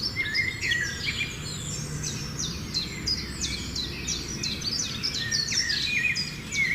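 Birds chirping and singing, many quick high chirps and short falling notes overlapping without a break, over a low, steady background hum.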